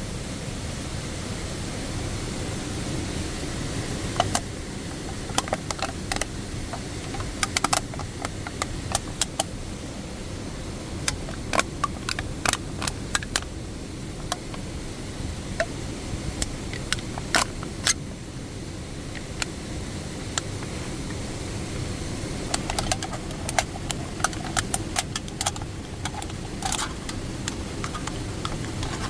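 Irregular sharp pops and crackles, coming in clusters, over a steady low rumble.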